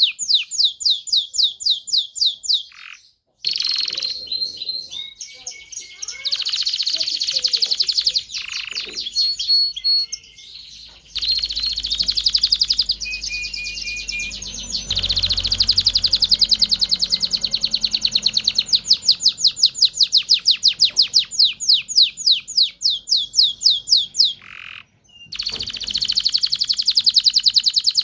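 Canary singing a long song of fast trills and rolls of repeated high notes that change speed from phrase to phrase. The song pauses briefly about three seconds in and again near the end.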